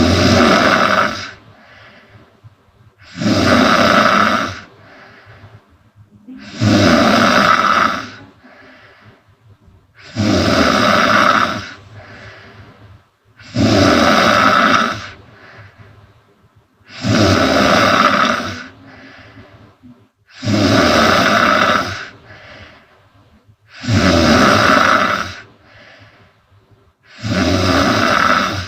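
A woman snoring loudly and regularly, nine heavy snores about three and a half seconds apart, each lasting about a second and a half, with softer breathing between them.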